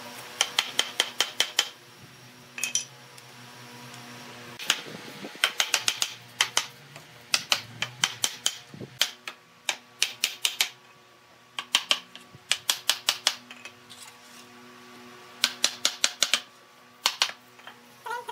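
Wooden mallet tapping the joints of a wooden chair frame together, in quick runs of light knocks with short pauses between.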